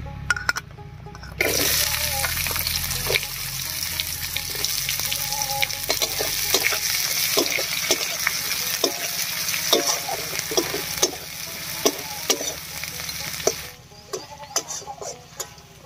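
Chopped onions dropped into hot oil in a wok, sizzling loudly from about a second and a half in, with a spatula scraping and clicking against the wok as they are stirred; the sizzle dies down near the end.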